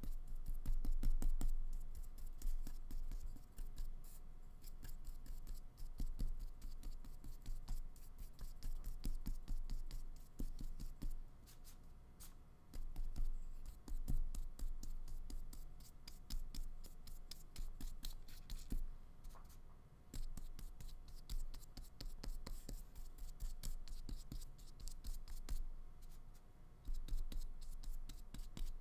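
Flat paintbrush laying acrylic paint onto paper: a steady run of short brush strokes scraping across the sheet, one quickly after another.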